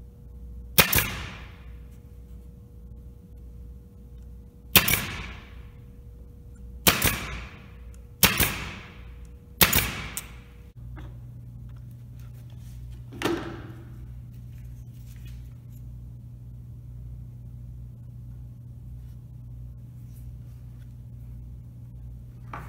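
Brad nailer firing five times over about nine seconds, each a sharp shot with a short fading tail, driving brads to fasten plywood pieces. A single fainter knock follows a few seconds later.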